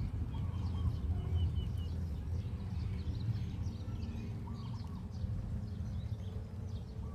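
Small birds chirping over a steady low rumble.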